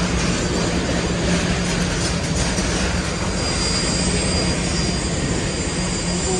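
Steady engine din of an airport apron with a constant low hum, the sound of idling ground vehicles and aircraft engines.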